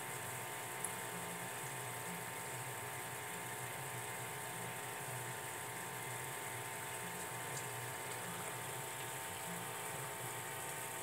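Aquarium pump humming steadily with water bubbling in the tank, and a single click about a second in.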